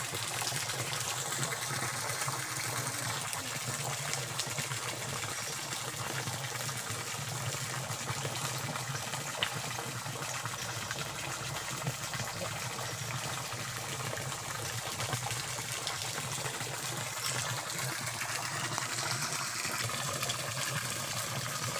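Steady rush of flowing stream water, with a small waterfall nearby.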